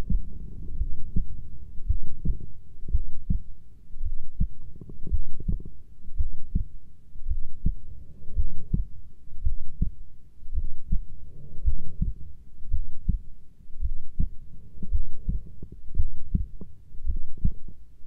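A heartbeat: steady, regular low beats at about one a second.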